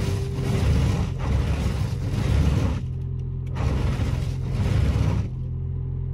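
Windshield wiper blades of a 2004 Toyota Prius scraping and chattering across an ice-glazed windshield in long strokes, with short pauses about three seconds in and again near the end. A steady low hum runs underneath.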